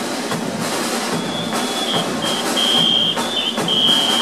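Gombey drum-and-whistle music: a rapid, steady drumbeat with a shrill whistle blown in a series of short and long blasts from about a second in, the longest near the end.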